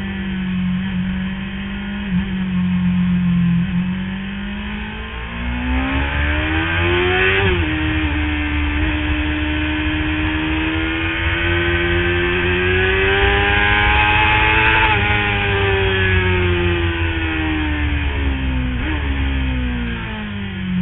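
Sport motorcycle engine at track speed, heard from on board. The revs climb and drop sharply at a gear change about seven seconds in, rise again to a peak at around fifteen seconds, then fall away as the bike slows, with a quick jump in pitch near the end.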